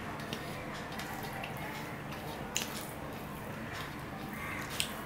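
Fingers mixing rice and curry on a stainless steel plate, with three short sharp clicks, over a steady background hiss.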